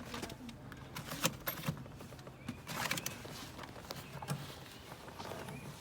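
Scattered light clicks and rattles of hands working the door handle and lock linkage inside an open car door, whose outside handle is broken off at the bottom.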